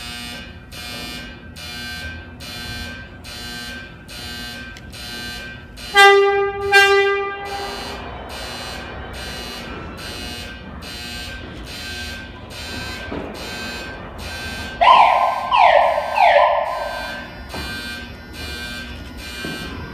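A shop warning alarm pulsing about two to three times a second while an R142 subway train pulls out, the train's horn sounding two short blasts about six seconds in. About fifteen seconds in come three loud squeals, each falling in pitch.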